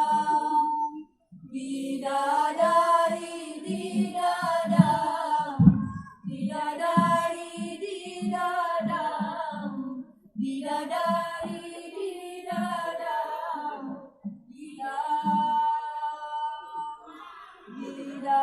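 Female choir singing a cappella in sustained phrases of a few seconds each, with short breaks for breath between them.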